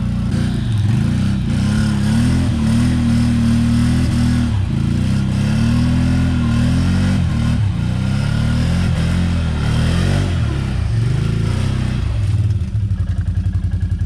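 A small vehicle engine running close by, its pitch rising and falling as it is driven and revved, then settling to a steady idle about twelve seconds in.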